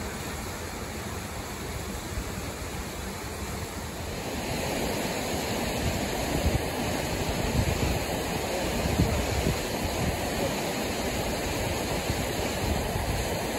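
Rushing mountain stream tumbling over rocks, a steady roar of water, with wind buffeting the microphone. It gets louder about four seconds in.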